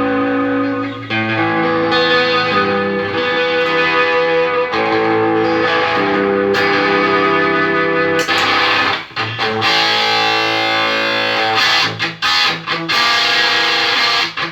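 Electric guitar played through a Line 6 POD HD500X multi-effects processor: held chords changing every second or two, then short choppy chords near the end. The unit is passing sound after repair of its footswitches, menu encoder and expression pedal sensor.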